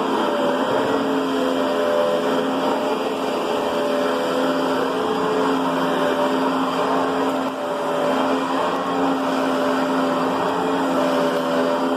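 Riccar Brilliance upright vacuum cleaner running steadily: a motor hum with a rush of air.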